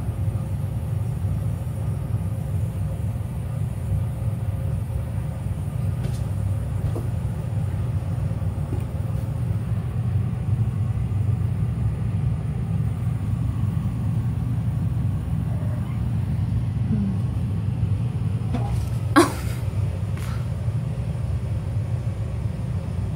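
Steady low rumble throughout, with one sharp click about nineteen seconds in and a few faint ticks.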